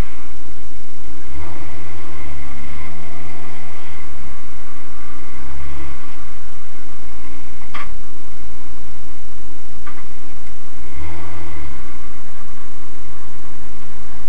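Turbocharged 1.8-litre 20-valve four-cylinder of an Audi Quattro drag car idling, heard inside the cabin, with several short throttle blips that rise and fall, one group early, another near the middle and one near the end. Two sharp clicks stand out between them.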